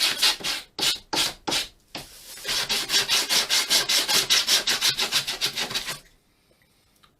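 Sandpaper rubbed by hand along the edge of a laser-cut wooden model-aircraft part, quick back-and-forth strokes about five a second, taking the burnt soot off the cut edge. It breaks into a few single strokes about a second in, picks up again, and stops about six seconds in.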